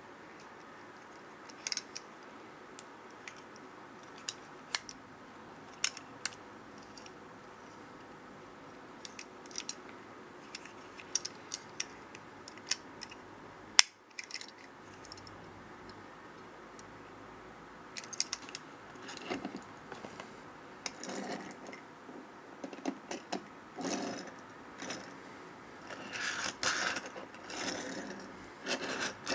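Small die-cast toy refuse truck being handled: scattered light clicks and taps of metal and plastic parts, with one sharper click about halfway through, then denser rattling and rubbing in the last third.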